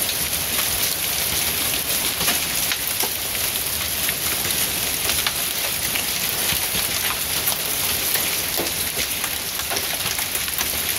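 Heavy rain mixed with hail: a dense, steady hiss of rain with many small sharp ticks of hailstones striking a concrete driveway and a parked Jeep.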